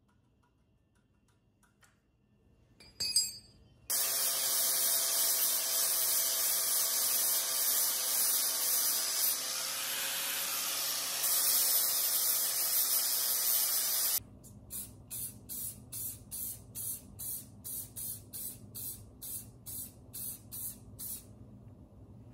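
A sharp click, then a small angle grinder with an abrasive disc running steadily for about ten seconds as it smooths the generator's steel frame where exhaust welds were cut off. It stops abruptly and is followed by an aerosol spray-paint can hissing in short rapid puffs, about two or three a second.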